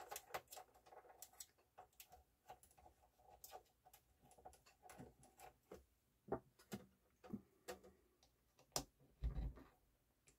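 Faint, irregular clicks and taps from hands handling the opened Yamaha CDC-625 CD changer, with a few sharper knocks and a dull thump in the second half.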